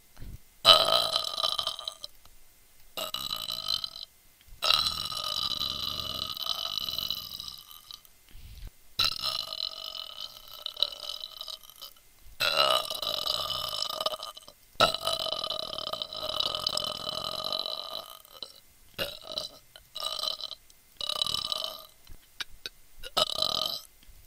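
A person burping deliberately, one burp after another: a run of long, drawn-out burps of two to four seconds each, then shorter ones coming close together near the end.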